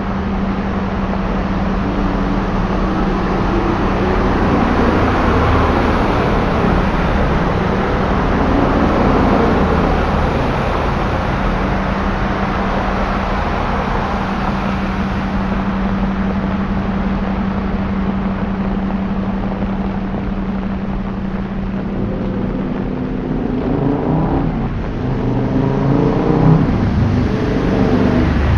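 Traffic on a wet, flooded city road: a steady hiss of tyres and spray from vehicles driving through standing water, over a constant engine hum. Near the end a vehicle's engine rises and falls in pitch as it accelerates past.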